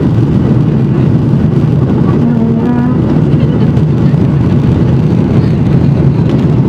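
Boeing 737-900ER jet engines at takeoff thrust, heard from inside the cabin as a loud, steady low rumble while the airliner lifts off the runway and climbs.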